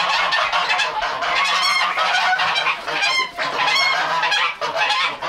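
A flock of domestic geese honking, really loud, with many overlapping calls going on continuously.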